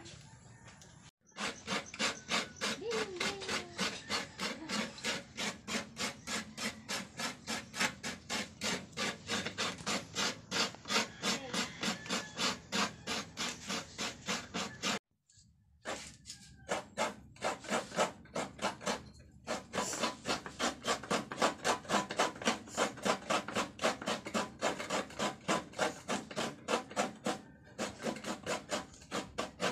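Fresh coconut meat being grated by hand, a coconut half scraped over a toothed coconut grater (kudkuran) in quick, even strokes, about three to four a second. Twice the scraping stops briefly, about a second in and halfway through.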